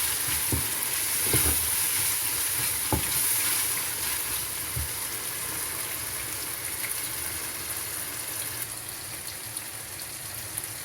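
Food frying in hot oil, a steady sizzle, with a few light knocks of a utensil against the pan in the first three seconds.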